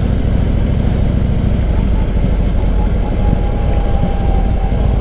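Harley-Davidson Road King's V-twin engine running steadily as the sidecar combination rides along.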